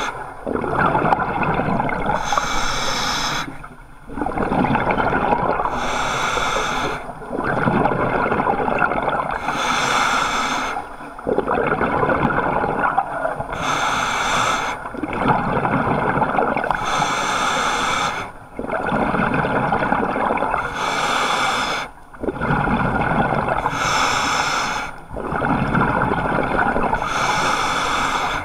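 Scuba diver breathing underwater through a regulator: a long bubbling, gurgling exhale and a hissing inhale, in a regular cycle about every three to four seconds with a brief pause between breaths.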